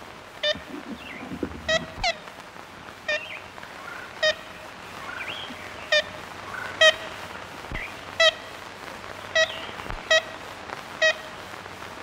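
Ivory-billed woodpecker giving its short 'kent' call notes over and over, roughly once a second, over the steady hiss of an old field recording.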